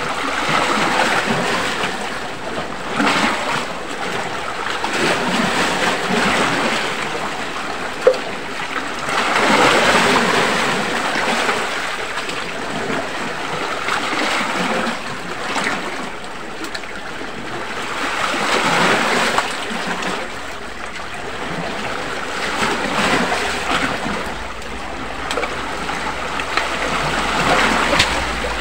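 Sea waves washing against a rocky shore, a rushing that swells and falls back every few seconds. One brief sharp click about eight seconds in.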